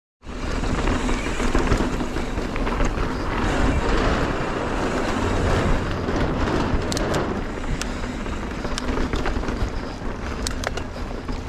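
Mountain bike riding fast along a dirt trail: a steady rush of wind on the action-camera microphone and tyre noise, with scattered sharp clicks and rattles.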